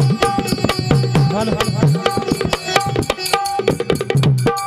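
Indian folk stage music: fast hand-drum strokes with a melodic instrument holding steady notes over them, and little or no voice.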